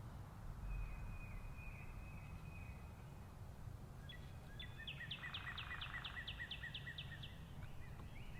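Songbirds singing: a thin, high trilled note about a second in, then a fast run of short repeated high notes from about the middle, over a steady low rumble.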